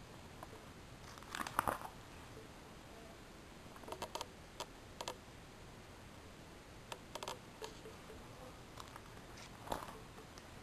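Clear plastic sleeve pages of a trading-card binder crinkling and rustling as they are handled, in short bursts every second or two, the loudest about a second and a half in.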